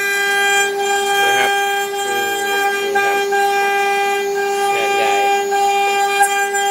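CNC machine spindle running with a steady, unchanging whine while it carves tamarind heartwood.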